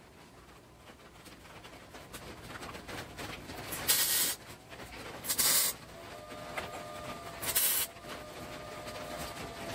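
MIG welder laying three short tack welds, each a brief burst under half a second long, about one and a half to two seconds apart, fixing small steel feet to a steel plate.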